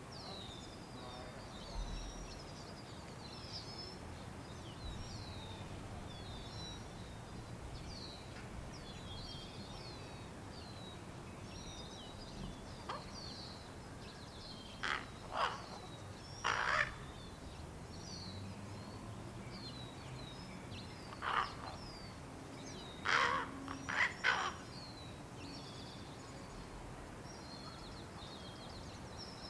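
Fledgling ravens giving harsh begging calls while waiting to be fed: about seven loud calls in two clusters, one midway and a second a few seconds later. Faint high chirps from small birds continue throughout.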